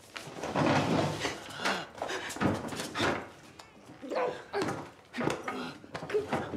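A woman choking and gasping as she is strangled by hand, in strained, uneven bursts.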